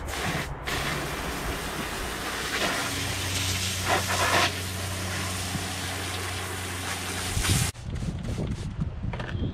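Water from a garden hose spraying hard onto motocross boots, a steady loud hiss that cuts off sharply near the end, followed by a few short, uneven splashy sounds as the boot is handled and sprayed with a trigger spray bottle.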